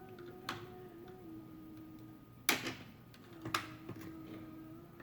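Sharp plastic clicks and a crack from prying at a glued-in plastic part inside a Teddy Ruxpin toy, the loudest about two and a half seconds in and another a second later. Under them someone hums one low held note that steps down slightly in pitch.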